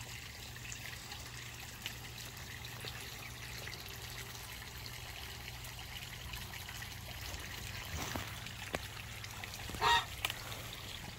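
Water trickling steadily, with one short goose honk about ten seconds in.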